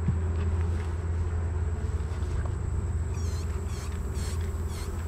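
Honeybees humming steadily in an opened Langstroth hive. From about three seconds in, a run of short high chirps repeats several times.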